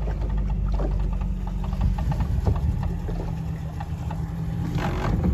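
Small open boat's outboard motor running steadily under way, a low even drone, with scattered light knocks and rattles.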